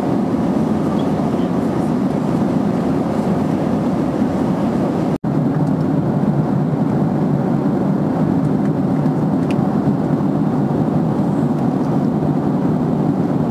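Steady cabin roar of a Boeing 767-300ER in cruise flight, the engines and airflow heard from inside the passenger cabin. The sound breaks off for an instant about five seconds in and resumes unchanged.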